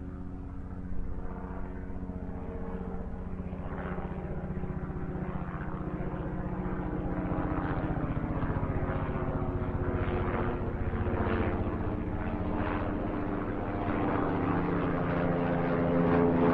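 Boeing 787 jet engines running at low power as the airliner taxis, a steady whine over a rumble that grows louder toward the end.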